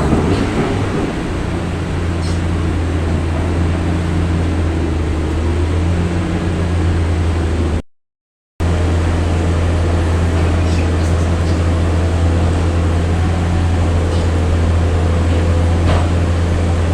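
Heavy diesel engine of a bored-pile drilling rig running steadily with a deep hum while the rig hoists its drill bit up out of the bore hole. The sound drops out completely for under a second about eight seconds in, then resumes unchanged.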